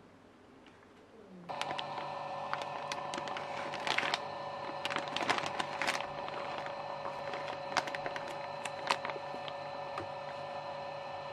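Anova sous vide circulator's pump motor starting up about a second and a half in, rising briefly in pitch and then running with a steady hum. Over it, a plastic zip-top bag of beef crinkles and water splashes as the bag is pressed down into the pot.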